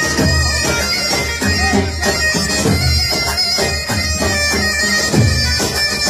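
Loud, live Arabic wedding music: a keyboard synthesizer plays a wind-instrument melody over a steady bass.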